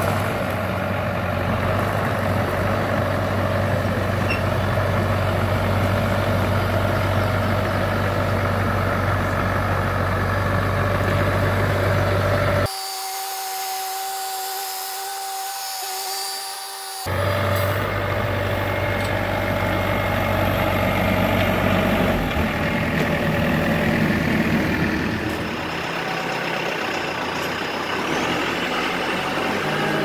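Bobcat compact excavator's diesel engine running steadily under load, carrying a planter slung from its bucket. A little before halfway the rumble cuts out abruptly for about four seconds, leaving a thinner sound with two steady high tones. Then the engine sound returns.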